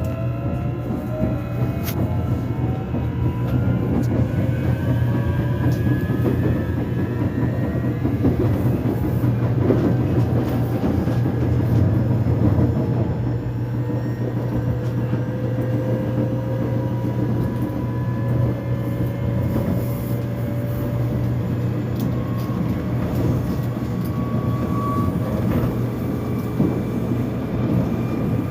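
Korean subway train heard from inside the carriage as it pulls away and gathers speed: the traction motors' whine rises in pitch over a steady hum and the rumble of the wheels on the track.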